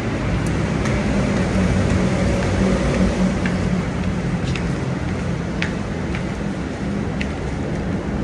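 Steady rumble of heavy road traffic with a low engine drone, and a few faint scattered ticks.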